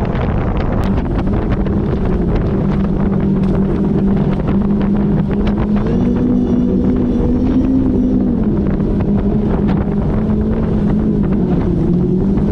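DCB performance catamaran's engines running under way at a steady speed, with wind rushing over the microphone and water noise from the hull. The engine pitch rises slightly about six seconds in and settles back a couple of seconds later.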